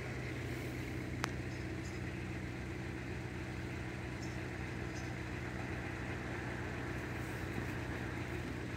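Steady low hum of an idling engine, with one sharp click about a second in.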